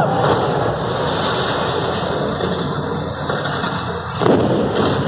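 Stunt seaplane's propeller engine running as it comes in low over the show lagoon, with a sudden loud burst about four seconds in.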